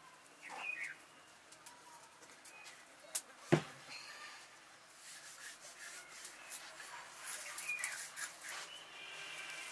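Soft rubbing as a palm rolls rice-flour dough into thin sticks on a flour-dusted wooden board, with birds chirping now and then. One sharp knock about three and a half seconds in.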